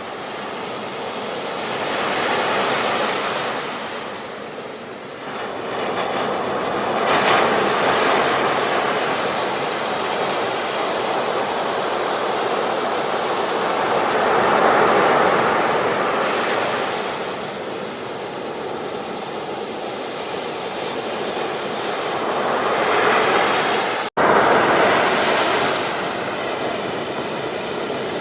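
Ocean surf breaking and washing on a beach, the rush of water swelling and ebbing every few seconds. The sound cuts out for an instant near the end.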